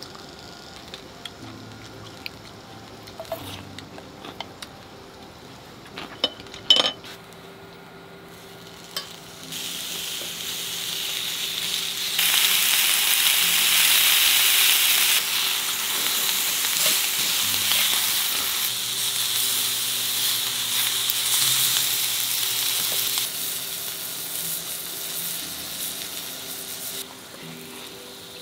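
Slices of hanwoo beef sizzling on a hot ridged grill pan over a portable gas burner. The sizzle starts about a third of the way in, is loudest soon after, and dies down near the end. Before it, a few light clicks and knocks.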